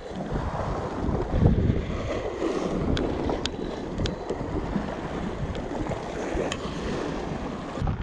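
Wind buffeting the microphone over sea waves washing against shore rocks, with a few small sharp clicks.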